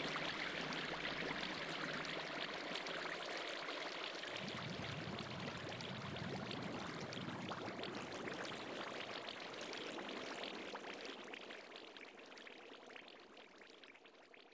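Steady rushing of flowing water, fading out over the last few seconds.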